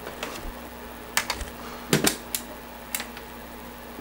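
Eject mechanism of a slim Compaq 5.25-inch floppy drive being worked by hand: about half a dozen sharp, irregular metal clicks and clacks. The mechanism is gummed up and freshly greased, and it is being worked loose so that the disc ejects on its own.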